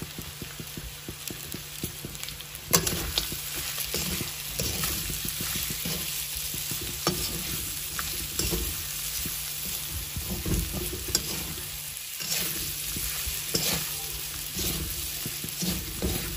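Pork pieces and onion sizzling as they fry in oil with spices in a steel kadai. From about three seconds in, a metal spatula stirs them, scraping and knocking against the pan with many sharp clicks.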